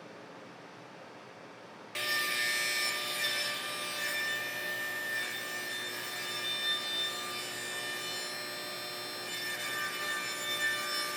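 A power saw cutting through material. It starts abruptly about two seconds in and runs steadily, with a whine of several high tones over a harsh rasp.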